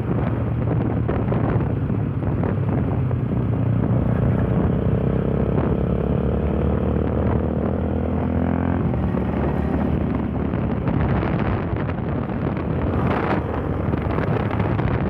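Yamaha Fazer 150 motorcycle's engine running while riding, its pitch climbing for several seconds and then falling sharply about nine seconds in, with wind buffeting the microphone throughout.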